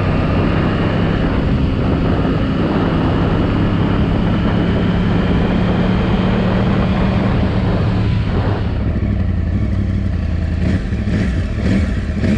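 Yamaha R1 sport bike's inline-four engine running under gentle throttle while riding, with wind and road noise; the throttle is kept smooth because the engine is being broken in. About nine seconds in the wind noise drops and the bike runs quieter.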